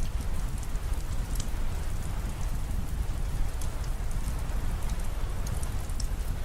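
Steady rain falling, with a deep low rumble beneath and scattered sharp ticks of single drops.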